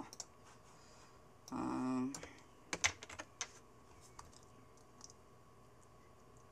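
Computer keyboard and mouse clicks: a quick cluster of sharp clicks about three seconds in, then a few faint ones, as a video render is started. Just before the clicks comes a brief hummed voice sound, the loudest thing here. A faint steady hum runs underneath.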